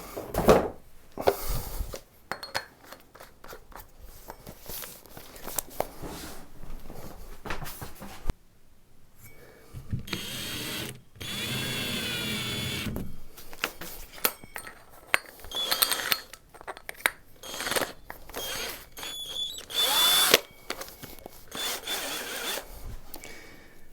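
Power drill with a 54 mm cutter boring the doorknob hole through a door. It runs in short, stop-start bursts with the motor speeding up and slowing, plus one longer steady run near the middle.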